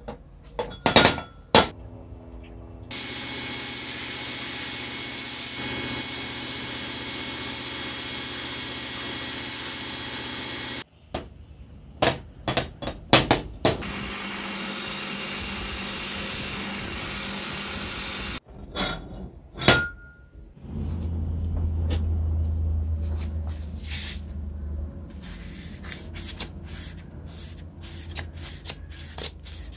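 Motor-driven cloth buffing wheel running steadily in two long stretches while an aluminium saw housing is polished on it. Between the stretches come sharp clicks and knocks of metal parts being handled.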